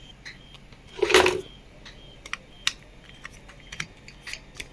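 Scattered small sharp clicks of a hand tool working the nut on a table fan's top as it is loosened, a handful of irregular ticks in the second half.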